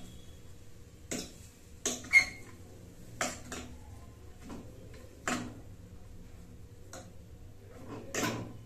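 Metal cutlery clinking against the sides and rim of a metal cooking pot as noodles are tossed and mixed, in irregular sharp clinks about once a second.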